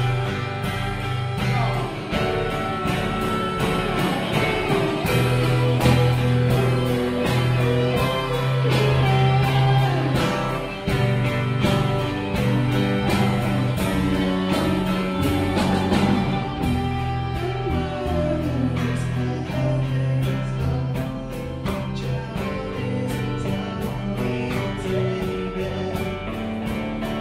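Live rock song played at full volume: guitar and a steady beat with a singer's voice over them.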